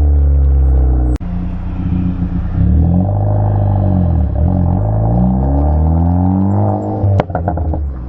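Ford Focus ST's turbocharged 2.0 EcoBoost four-cylinder through a 3-inch COBB turboback exhaust with catted downpipe, tuned for crackles. The engine is held at steady revs, then the throttle cuts about a second in and crackling follows on the overrun. The revs fall and rise again, and a sharp pop with a short burst of crackles comes near the end.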